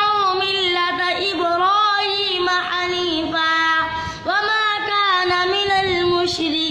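A boy's voice chanting Quran recitation in long, drawn-out melodic notes with ornamented turns, taking a short breath about four seconds in.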